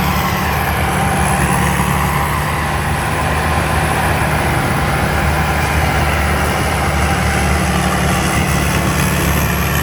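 TAMCO combine harvester with an Isuzu 6HK diesel running steadily while working a rice field: an even, unbroken engine drone with a thin high whine over it.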